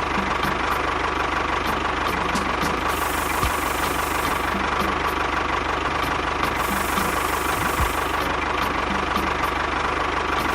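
An engine running steadily at an even speed, with a constant whine over a fast, even low pulse and a few low thumps.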